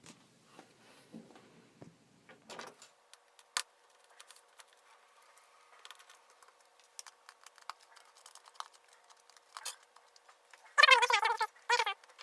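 Small Phillips screwdriver working the bezel screws out of a laptop's plastic display bezel: scattered light clicks and ticks. Near the end come two brief, louder pitched squeaks.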